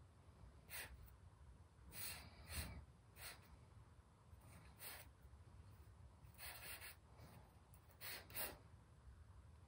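Faint, short scratches of a compressed charcoal stick on newsprint, about eight separate strokes.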